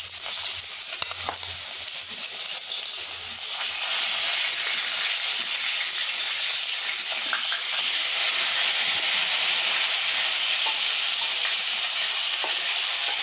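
Marinated chicken pieces sizzling in hot oil in a kadai, a steady frying hiss with a few clicks of the spatula early on; the sizzle grows louder about four seconds in as more pieces go into the oil.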